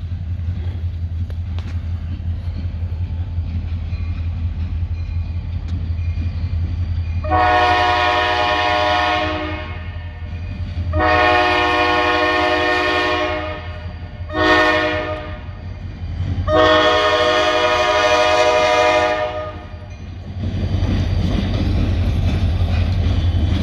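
EMD SD40 diesel locomotive sounding the grade-crossing horn signal: two long blasts, a short one, then a long one. A steady low engine drone runs beneath, and it grows into a louder rumble near the end as the train draws up.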